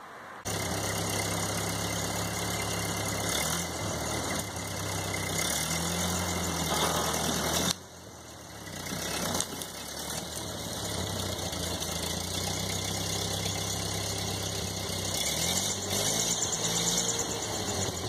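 Ford 8N tractor's four-cylinder gasoline engine running steadily while pulling a roped-up rose bush out of the ground, its pitch rising and falling a few times. The sound drops suddenly about eight seconds in and builds back up over the next couple of seconds.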